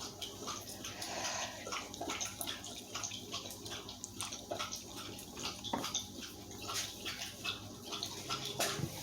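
Pot of water at a rolling boil with noodles in it, bubbling and popping steadily.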